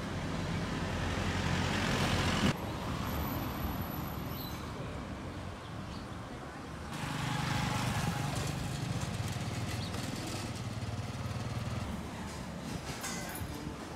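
Street traffic noise, with vehicles passing and an engine running close by for several seconds in the second half.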